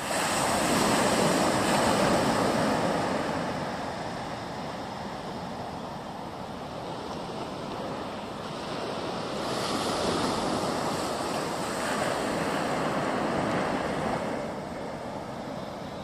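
Sea waves washing in on a beach, the surf swelling and easing, loudest in the first few seconds and again from about ten to fourteen seconds, with wind buffeting the microphone.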